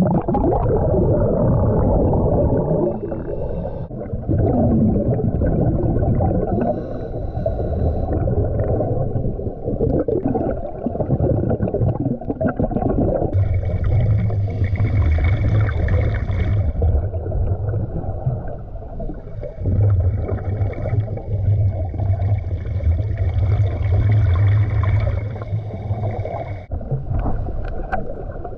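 Muffled underwater sound as the camera goes below the surface: a rush of bubbles at first, then a steady low churning of water. Two long stretches of a steady hum come in, one just after halfway and a longer one after it.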